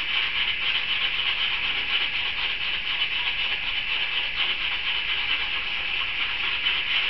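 Felt-tip marker scribbling rapidly back and forth on a paper plate: a steady run of fast scratchy strokes.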